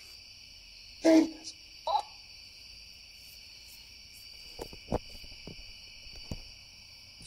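Night insect chorus, crickets giving a steady high trill, with two short louder pitched calls, one about a second in and another near two seconds, and a few faint clicks later on.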